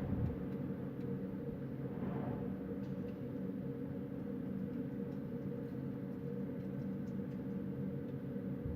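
Night wind blowing steadily over a low, even hum, with a brief gust about two seconds in.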